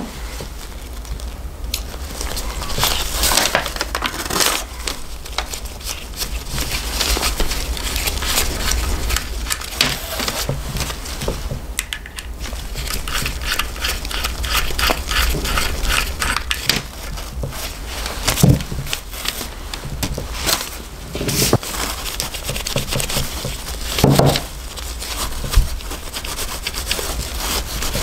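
Hands working on the metal parts of an opened vintage Wahl hair clipper: scratching, scraping and small clicks as a screwdriver works the blade screws and the blade is taken off, with crinkling paper and a few sharper knocks as parts are set down. A run of quick, even scratching comes about halfway through.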